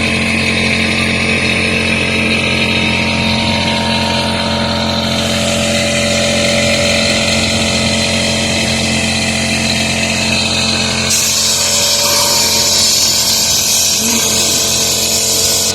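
Small air compressor running steadily with a hum, while compressed air hisses from the blow nozzle to clear dust from an RV furnace's sail switch. The hiss grows louder about five seconds in and again near the end.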